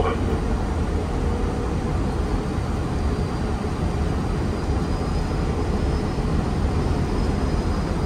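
Airbus A330 on final approach: steady jet noise with a deep rumble underneath. A faint high whine runs from about three to seven seconds in.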